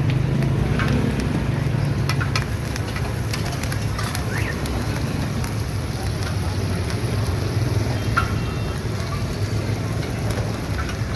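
Busy street-stall ambience: a steady hum of traffic and activity with scattered sharp clicks and clinks.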